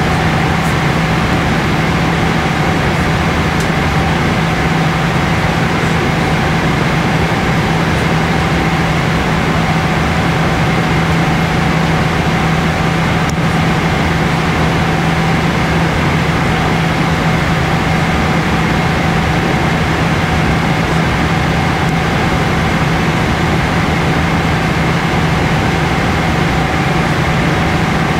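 Boeing 777-300ER cabin noise in cruise: the steady drone of airflow and engines, with a strong low hum and fainter higher steady tones.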